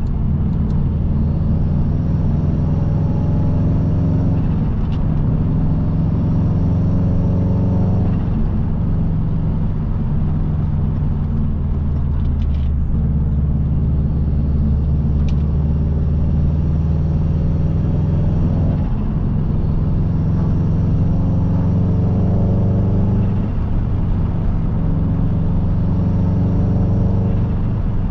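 Subaru Impreza WRX's turbocharged EJ20 boxer engine running steadily on the road. Its note creeps slowly upward and drops back three times: about a third of the way in, and twice past the two-thirds mark.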